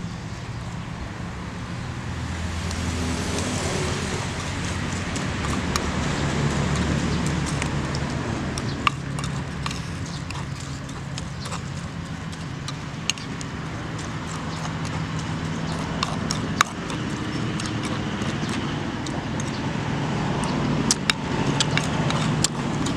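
Pestle working chili dipping sauce in a clay mortar: a few sharp knocks scattered through, over a steady low rumble.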